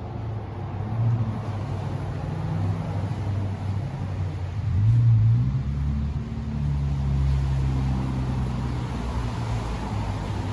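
A low mechanical drone like a motor running, which swells about five seconds in and again from about six and a half to nine seconds.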